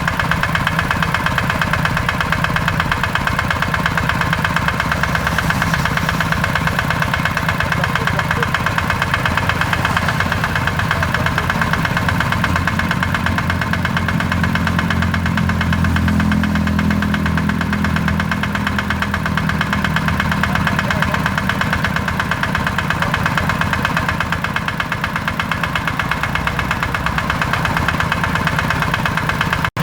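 Kubota RD85 DI-2S single-cylinder diesel on a hand tractor, running steadily with a rapid, even chugging beat; its low note swells for a few seconds about halfway through.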